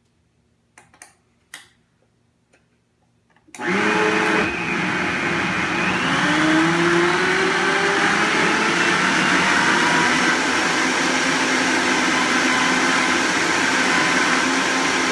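A countertop blender starts about three and a half seconds in, its motor whine rising in pitch as it speeds up, then runs loud and steady blending thin crepe batter of flour, eggs, milk and water. A few faint clicks come before it starts.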